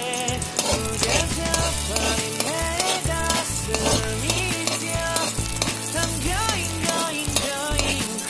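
Red onion frying in hot oil in a metal pan, stirred and scraped with a metal spatula. Background music with a melody and bass plays along.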